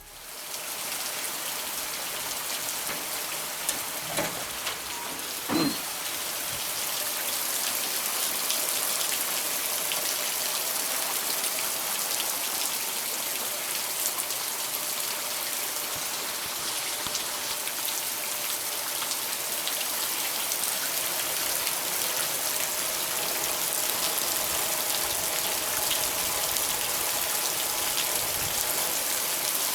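Heavy rain falling steadily, with two brief knocks about four and six seconds in.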